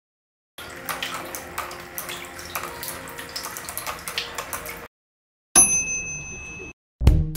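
Water trickling and splashing in a PVC-pipe waterfall fountain, with many small irregular clicks and drips, cutting off suddenly. A bright ding rings out and fades about a second later, and music starts near the end.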